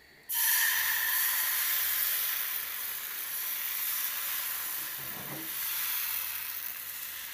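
Wheat-flour tortilla batter poured into a hot, lightly oiled non-stick frying pan, setting off a loud sizzle that starts suddenly about a third of a second in and slowly dies down.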